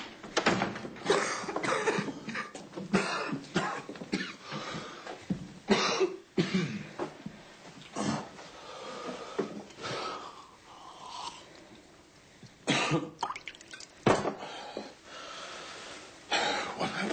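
Repeated coughing in irregular fits, with throat-clearing and hard breathing between, from smoke breathed in during a fire.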